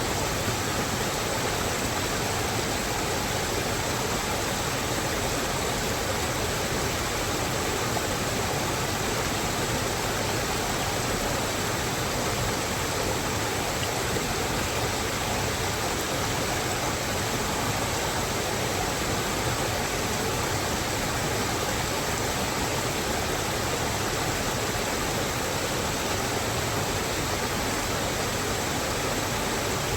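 Steady, even rush of running or falling water, unchanging throughout.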